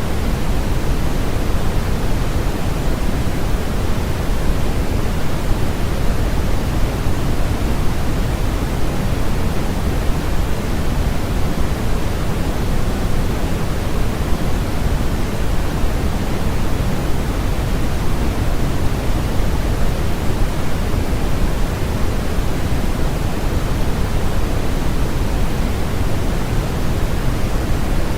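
Steady generated noise for sleep, sold as white noise but heavier in the low end and thinning toward the highs, like pink noise. It is even and unchanging, with no events or tones.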